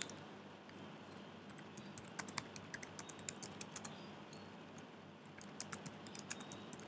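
Typing on a computer keyboard: quick runs of light key clicks, one starting about two seconds in and a shorter one near the end, over faint room hum.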